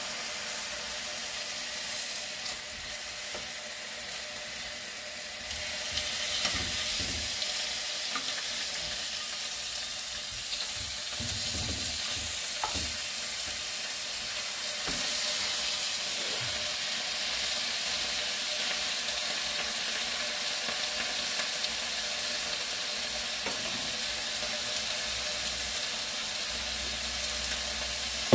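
Meat sizzling as it grills, a steady crackling hiss, with a few light clicks of metal chopsticks.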